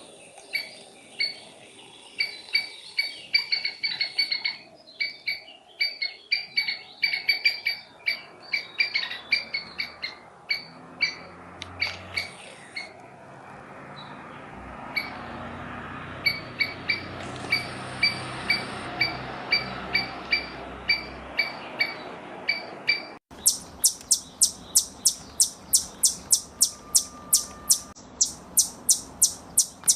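Squirrel calling with a long run of short, evenly repeated chirps, about two to three a second. About three-quarters through, a different recording starts with faster, sharper chirps, about four a second.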